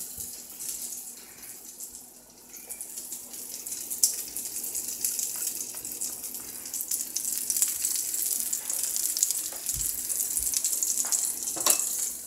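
A patty frying in a skillet: a steady sizzle with fine crackling that grows louder after about two seconds.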